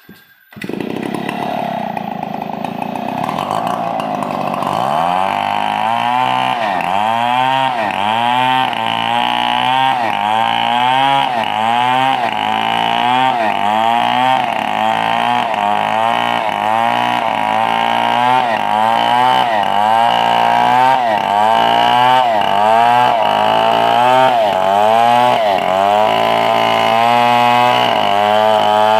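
Engine-powered wood saw starting up about half a second in and coming up to speed over the next few seconds, then running hard through coconut wood with its pitch dipping and recovering about once a second as it works under load.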